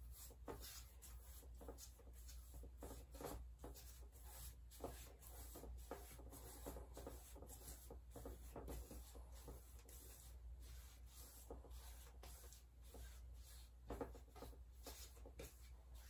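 Faint, repeated scratchy strokes of a flat paintbrush dragged back and forth across a stretched canvas, blending wet red paint into orange.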